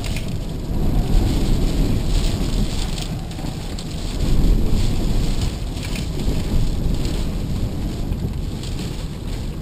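Strong, gusty storm wind buffeting the microphone in rough surges, swelling about a second in and again around four seconds in, with light rain hitting the camera.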